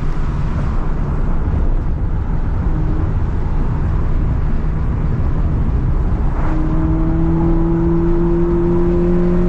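Honda Fit's 1.5-litre four-cylinder engine running under steady heavy road and tyre noise while driving. About six and a half seconds in, its note firms into a clear drone that slowly rises in pitch as the car gathers speed.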